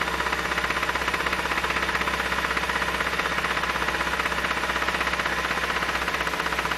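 Nissan SR20DE 2.0-litre four-cylinder engine running steadily with a loud, rapid, even knock from the bottom end: a bad rod knock, which the owner puts down to the engine probably having been stored outside too long.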